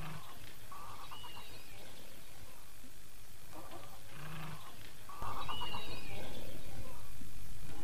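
Tropical jungle ambience of bird and animal calls: the same group of calls, a short high whistling note over a quick pulsing call, comes twice about four and a half seconds apart. A low rumble joins about five seconds in.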